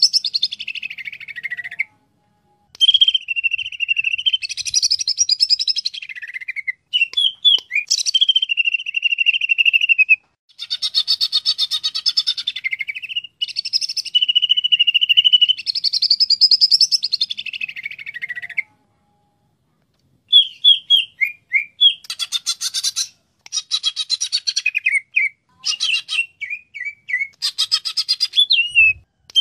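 Greater green leafbird (cucak ijo) singing: long loud phrases of fast warbling notes with rapid trills, broken by short pauses. In the last third the song turns to choppier short notes.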